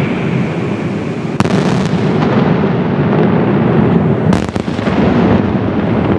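Barrage of Italian daytime firework shells by Senatore bursting in quick succession, a dense, continuous rumble of overlapping reports. Two sharper bangs stand out, about a second and a half in and again at about four seconds.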